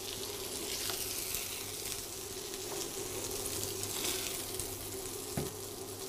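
Lamb medallions frying in butter in a hot pan: a steady sizzle with a few faint pops.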